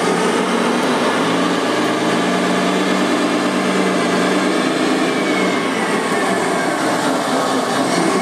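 Radio-controlled model construction machines running: a steady mechanical whirr of electric motors and gearing, with a hum that holds from about a second in to past the middle.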